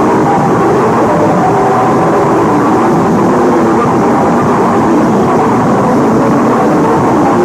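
A loud, steady roaring noise with faint wavering tones in it, unbroken throughout.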